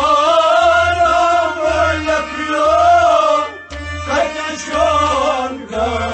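Kashmiri Sufi song: a man's voice sings long, held, wavering phrases, breaking briefly twice, over a drum beating a steady pulse.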